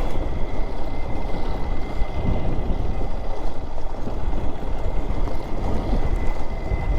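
Motorcycle running along a dirt road with heavy wind rumble on the microphone, under a steady high-pitched insect shrill that the riders find loud and annoying.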